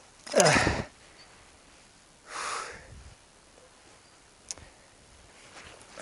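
A man's short, loud voiced exhalation falling in pitch. About two seconds later comes a sniff, then a single faint click.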